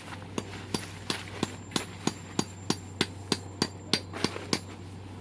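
Rapid, evenly paced hammer strikes, about three a second, stopping about four and a half seconds in, over a steady low hum.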